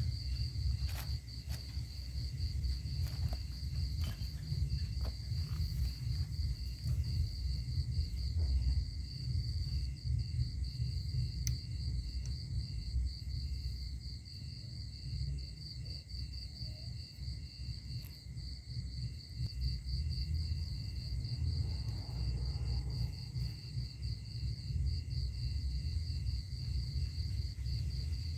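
Crickets chirping in a steady, pulsing high trill, over a constant low rumble.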